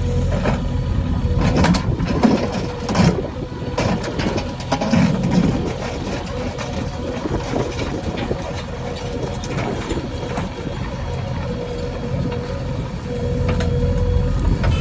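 JCB 3DX backhoe loader's diesel engine running steadily, with several clanks and knocks in the first few seconds.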